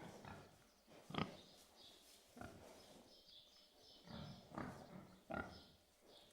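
Pigs grunting: a string of about six short grunts, the sharpest about a second in, with faint distant birds chirping behind them.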